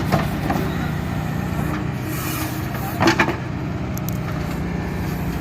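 Diesel engine of a Kubota tractor backhoe loader running steadily, with a sharp knock just at the start and a louder double knock about three seconds in.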